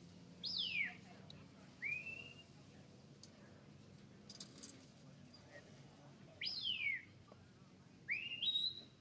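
Sheepdog handler's whistle commands: a two-part whistle, a falling note followed by a short rising one, given twice, the second time near the end.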